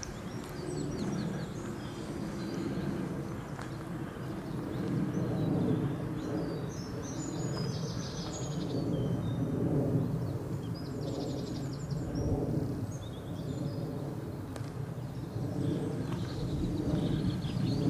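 Small songbirds chirping on and off in high, quick phrases over a steady low outdoor rumble.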